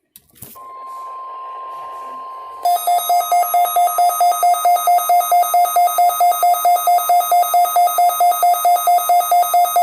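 NOAA Weather Radio test alert tones: a click, then a steady electronic tone for about two seconds. Then a loud electronic alarm beeping, about four beeps a second, signalling the Required Weekly Test.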